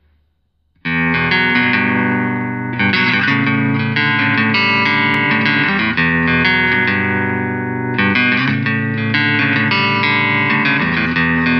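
ESP LTD 213 strat-style electric guitar played through a Line 6 POD HD500X multi-effects processor. It starts about a second in and plays sustained, picked phrases, with new phrases struck at about three, six and eight seconds in.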